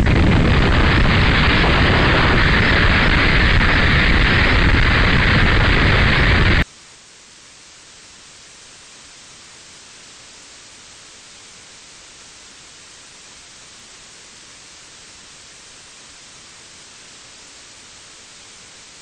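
Loud, dense static-like noise that cuts off suddenly about six and a half seconds in, leaving a faint steady hiss for the rest.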